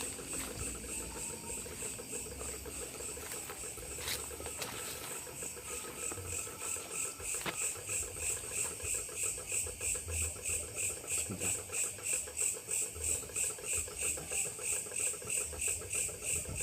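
Night insects chirping in a steady pulsing rhythm of about two to three pulses a second, growing louder from about halfway through.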